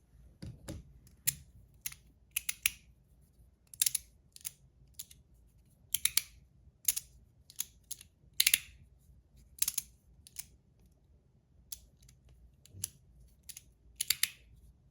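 Sharp metallic clicks of a fidget toy being played with in the hand. The clicks are irregular, about one or two a second, some coming in quick pairs.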